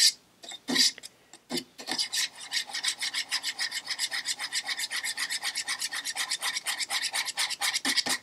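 A flat mixing stick stirring metallic silver base coat paint, scraping round the inside of the metal paint tin. A few separate scrapes come first, then from about two seconds in a quick, steady rhythm of about six scrapes a second.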